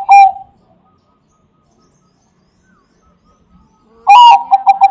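Zebra dove of the perkutut bangkok line singing its cooing song. The tail of one phrase of rapid rolling coos ends just after the start, and after a pause of about three and a half seconds another phrase begins near the end.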